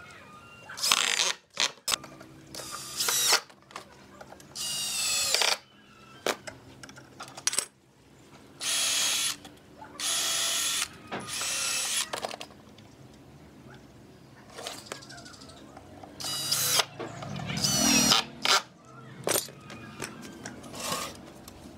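Cordless drill running in short bursts into pallet wood, about nine runs of a second or less, its motor whine rising and falling as it speeds up and stops, with clicks and knocks of wood and tools between the runs.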